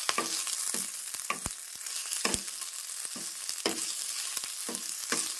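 A tadka of dried red chillies and mustard seeds sizzling in hot oil in a small kadai, with a steady frying hiss. A steel spoon scrapes and clinks against the pan about twice a second as the chillies are stirred.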